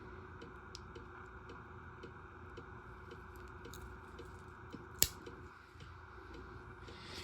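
Pocketknives being handled: faint scattered ticks and one sharp click about five seconds in, over a steady background hum.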